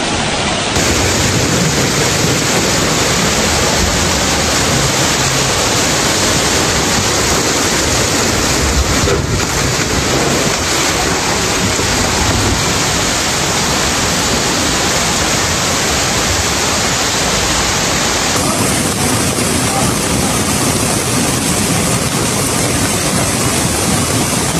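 Muddy flash-flood water rushing and churning through a city street: a loud, steady noise of fast-moving water. It shifts abruptly in tone about a second in and again about three-quarters of the way through.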